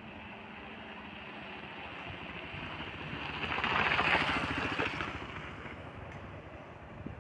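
A motor vehicle passes by. It grows louder to a peak about four seconds in, then fades away.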